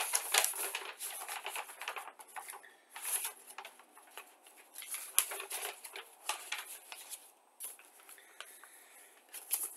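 Paper instruction sheet rustling and crackling as it is unfolded and smoothed flat by hand: dense crinkling for the first few seconds, then softer, scattered crinkles.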